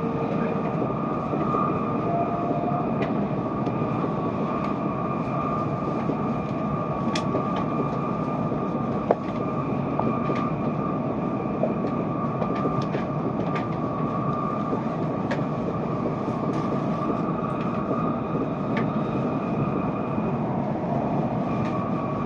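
Tokaido Shinkansen train running, heard from inside the passenger car: a steady rumble with a steady high whine. Scattered light clicks come from the track, with one sharper knock about nine seconds in.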